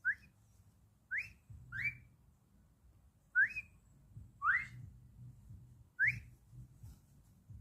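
Cockatiel giving short rising whistled chirps, six of them, spaced irregularly about a second apart.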